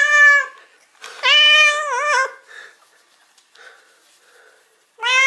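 Domestic cat meowing loudly at close range: a long call that ends about half a second in, a longer wavering meow about a second in, and another beginning near the end. These are greeting meows.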